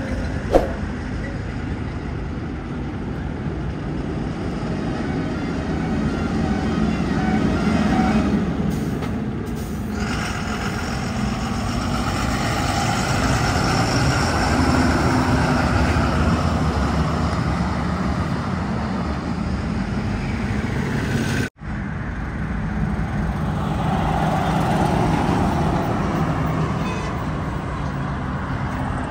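Highway traffic with heavy trucks driving past, a steady rumble of engines and tyres that swells and fades as vehicles go by.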